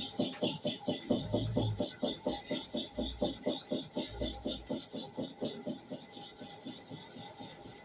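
Hair clipper blade rubbed quickly back and forth on a sharpening surface, a rhythmic scraping of about four to five strokes a second that grows fainter near the end.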